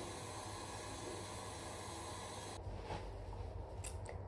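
A steady hiss that cuts off abruptly about two and a half seconds in, followed by a few faint clicks.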